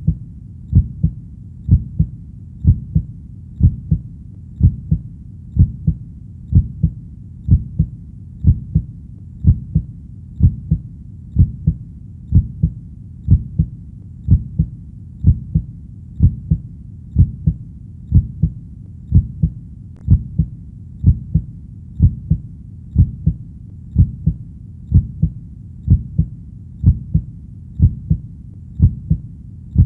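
A human heartbeat beating steadily at about one beat a second, each beat a low double thump (lub-dub), with a low steady rumble between beats.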